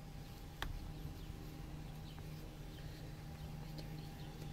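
Steady low hum inside a running car's cabin, with a single sharp click about half a second in.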